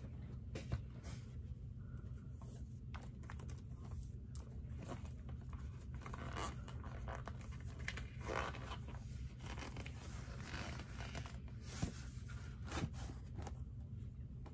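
Laces of black leather Dr. Martens 1460 boots being pulled loose through the metal eyelets: a string of short scratchy clicks and rasps, with a few longer zipping scrapes.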